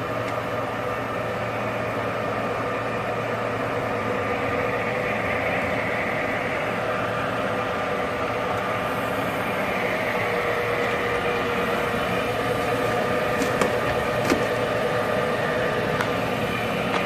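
Sumori Espanza SP2114 metal lathe, with its 4 kW main motor, running steadily with a hum and whine from the headstock drive. A few sharp clicks come near the end.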